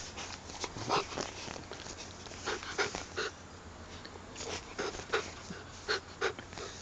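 English bull terrier puppy making a string of short, quick sniffs and huffs close to the microphone, about ten separate bursts with the loudest about a second in and near the five- and six-second marks.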